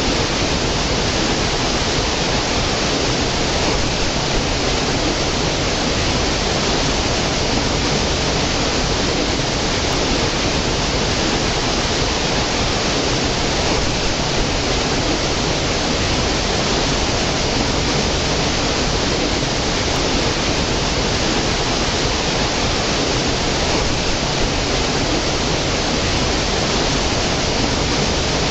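Small stream cascading over mossy boulders into a pool: a steady, even rush of falling and running water.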